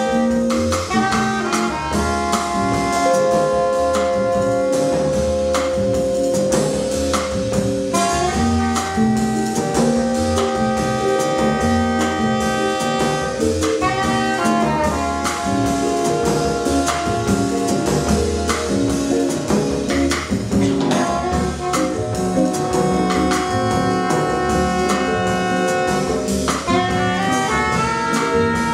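Small jazz combo playing a slow tune: soprano saxophone and trumpet hold long melody notes together over upright bass and a drum kit's cymbals and drums.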